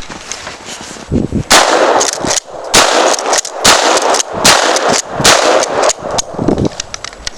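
A gun fired rapidly, about six loud shots a little under a second apart.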